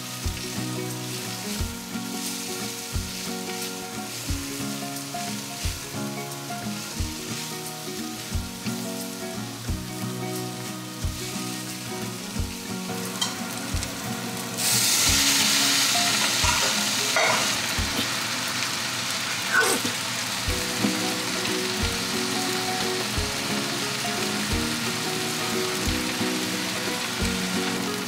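Shredded cabbage, carrot and green pepper sizzling in a hot wok, stirred with a wooden spatula. About halfway through, cooked noodles are tipped in from a strainer and the sizzle jumps suddenly louder and hissier, then settles a little.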